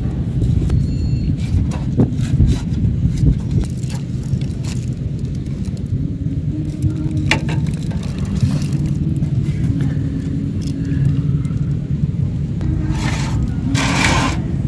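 A steady low rumble underlies scattered clicks and taps from handling food and utensils. Two short rustling hisses come near the end.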